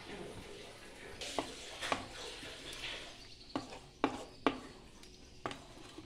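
A spatula stirring thick curry in a nonstick pan, with about six sharp knocks of the spatula against the pan spread over the few seconds.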